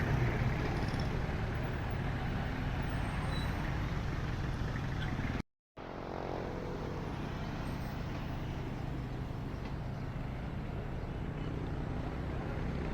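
City street traffic: a steady mix of vehicle engines and road noise. The sound cuts out completely for a split second about five and a half seconds in, then the traffic resumes.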